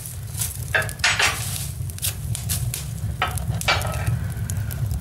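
Twigs and leaves burning in a wood stove's firebox, crackling and hissing with irregular sharp pops over a steady low rumble.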